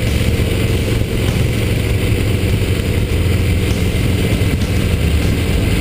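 Motorcycle riding at road speed: a steady engine drone under heavy wind rush on a microphone mounted by the front wheel.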